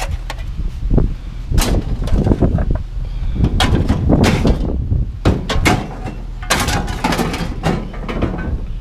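Aluminum scrap being handled by hand, with repeated bangs and clatters of metal pieces being moved and set down.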